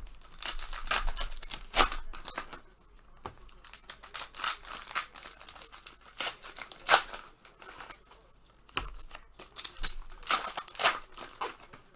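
Panini Prizm basketball card packs being torn open, their plastic wrappers crinkling and crackling in irregular bursts. The sharpest tears come at about two seconds and seven seconds in.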